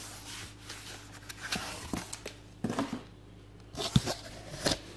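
Cardboard shipping-box flaps being pulled open and handled, with scattered rustling and small clicks of the cardboard. A sharp knock about four seconds in is the loudest sound.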